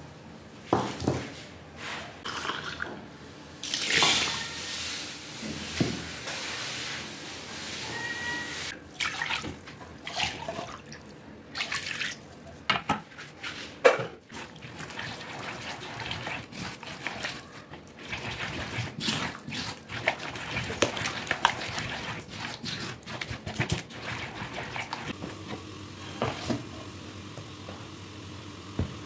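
Flour batter being mixed with water in a clay bowl: wet sloshing and stirring with many irregular clicks and knocks. Near the end a spoon stirs batter in a plastic container.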